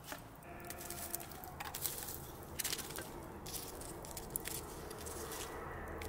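Metal tongs clicking and scraping as foil-wrapped potatoes are turned in the embers of a wood fire: a scattered run of sharp metallic clicks.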